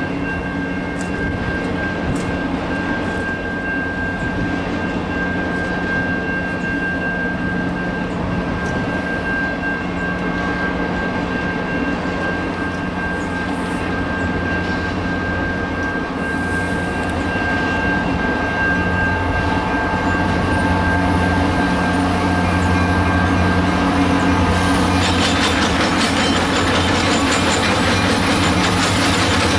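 Freight train rolling past with a continuous rumble of cars and a thin steady high tone over it. A low diesel locomotive engine drone grows in, and about 25 seconds in the wheel clatter gets sharply louder as the locomotives come close.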